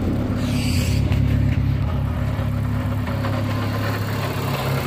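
Turbocharged Dodge Neon's DOHC four-cylinder engine idling steadily, with a light chatter that the owner puts down to a noisy manual transmission, one that quiets with the clutch pushed in. A brief rustle about half a second in.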